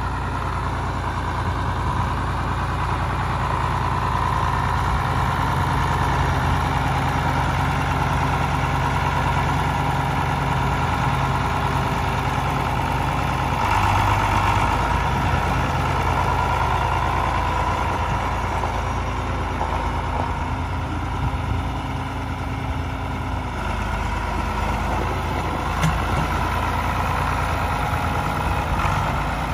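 John Deere 4040 tractor's six-cylinder diesel engine running at a steady low speed as the tractor drives past, loudest about halfway through as it comes closest.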